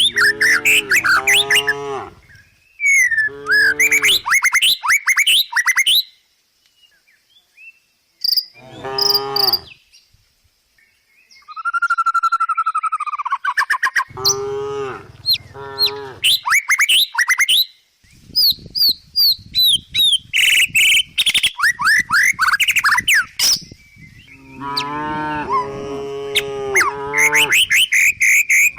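Cows mooing again and again, in runs of calls with short quiet gaps between them, while birds chirp.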